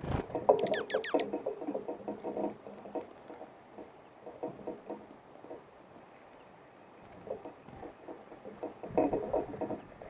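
Dark-eyed junco at a platform feeder: a wing flutter as it lands, then rapid tapping and scratching of its bill and feet in the sunflower seeds on the tray. The tapping is loudest in the first three seconds and again near the end. A few quick falling notes come near the start, and two short, very high trills about two and six seconds in.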